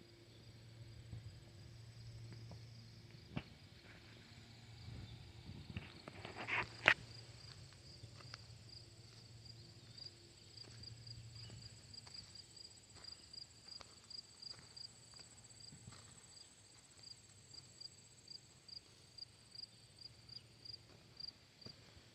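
Quiet farm ambience: a low steady hum through the first half, scattered soft knocks and a sharp click about seven seconds in. Through the second half a high, short chirp repeats evenly about two to three times a second.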